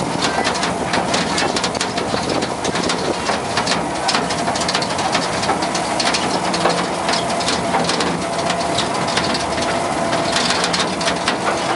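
An open train car rattling and clattering along the rails, with a dense run of clicks and knocks from the wheels and car body and a faint steady whine.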